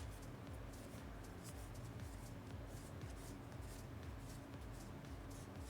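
Faint rustling and sliding of trading cards being flipped through by hand, in short irregular scratches over a steady low hum.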